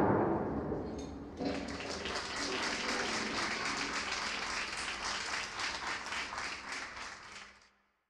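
The last notes of an electric bass and guitar ringing out and fading, then audience applause starting about a second and a half in and cutting off suddenly near the end.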